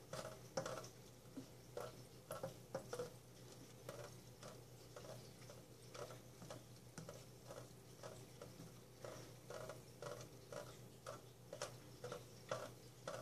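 A cat licking at drips from a kitchen faucet over a stainless steel sink: faint, irregular small wet ticks, a few a second.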